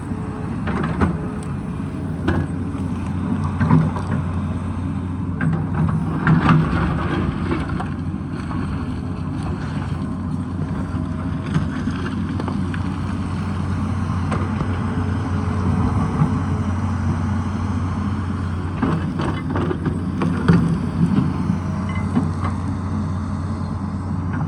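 Tata Hitachi excavator's diesel engine running steadily under load. Scattered knocks and scrapes come through it, from the bucket working rock and soil.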